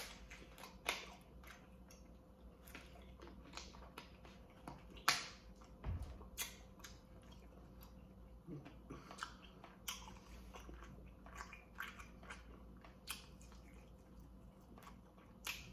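A person chewing and biting baked chicken drumsticks, with faint irregular mouth clicks; the loudest come about five seconds in and just before the end.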